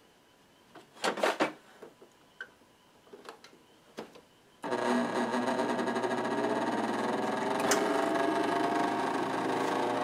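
A few faint handling clicks, then about halfway through the repaired dehumidifier starts running: its compressor and blower fan give a steady machine hum, with one tone slowly rising in pitch and a single sharp click near the end. The blower, which had not been working, now runs.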